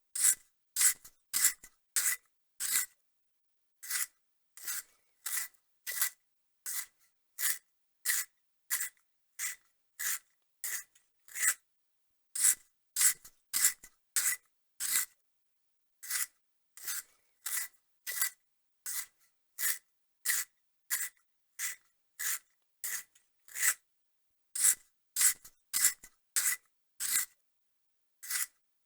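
Pencil sharpener shaving a pencil: a long series of short rasping strokes, about one every half second or so, in runs with brief pauses between them.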